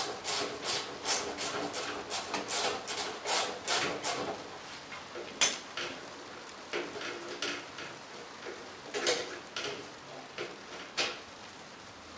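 Ratchet wrench clicking in quick even strokes, about three a second, as the upper mounting bolt of a Kreidler moped's rear shock absorber is undone. The clicking stops a little after four seconds in, followed by a few separate metallic clicks and knocks as the bolt and shock are handled.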